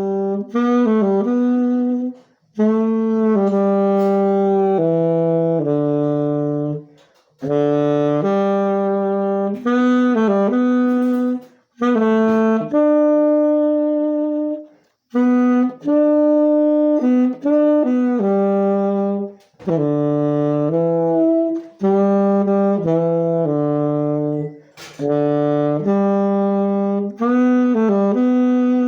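Saxophone played with a refaced Barkley Sangiovese 8 mouthpiece: short melodic phrases of held and moving notes, with brief breaths between them.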